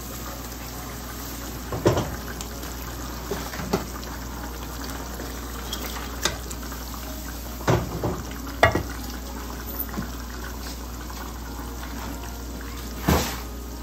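Curry gravy boiling in a pan with a steady bubbling hiss while pieces of fried red snapper are slid in from a bowl and stirred with a spatula. Several sharp knocks of the bowl and spatula against the pan stand out, about six in all, the loudest near two seconds in, twice around eight seconds and near the end.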